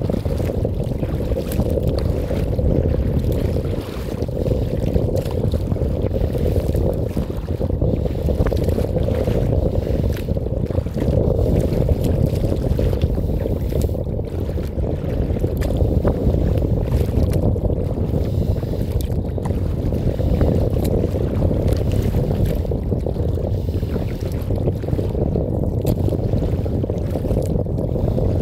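Wind buffeting a phone microphone mounted on a kayak, a steady loud low rumble, with water splashing and slapping against the kayak's hull as it crosses choppy harbour waves.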